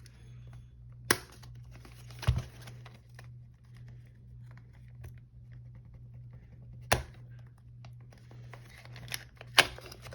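Packaging of a speed cube being handled as its box is opened: faint rustling and crinkling, with four sharp knocks spread through, over a steady low hum.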